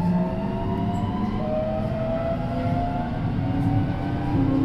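Keio 8000-series electric train's VVVF inverter and traction motors heard aboard a motor car, with several whining tones rising slowly and jumping in steps over a low rumble as the train accelerates.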